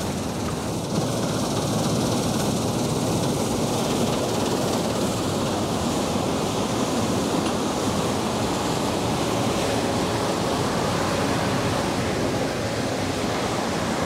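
Fendt Ideal 7 combine harvester working, threshing winter wheat: a steady, even rushing noise of engine and threshing machinery with no clear pitch, a little louder from about a second in.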